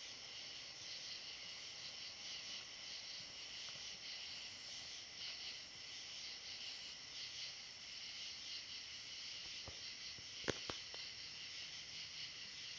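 Steady high-pitched chorus of night insects. About ten seconds in come three short sharp clicks, the middle one the loudest.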